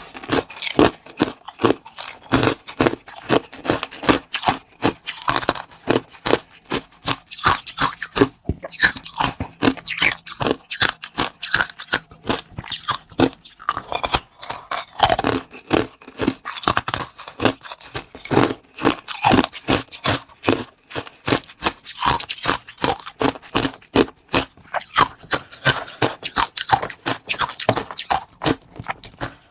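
Close-miked crunching and chewing of food: a dense, irregular run of crisp crackles and snaps that keeps going without pause.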